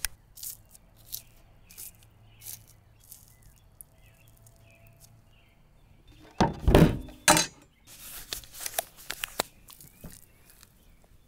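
Nitrile gloves stretched on over cotton liners, with a few sharp snaps. About six and a half seconds in, a loud clunk and thudding as a heavy roast is handled in a stainless steel pan, followed by crackly rustling.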